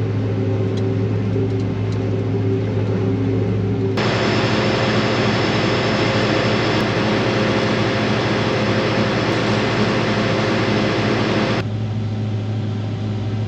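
John Deere combine harvester's diesel engine running steadily, first as a muffled hum heard inside the cab. About four seconds in it switches abruptly to a louder, noisier sound of the engine heard from outside beside the machine, and near the end returns to the muffled in-cab hum.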